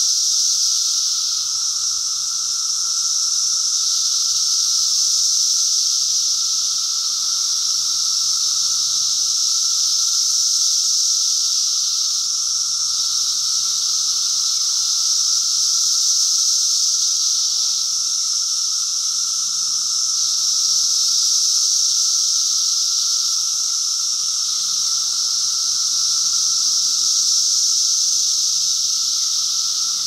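Cicadas singing in chorus: a loud, continuous, high-pitched buzzing drone that swells and eases slightly every few seconds.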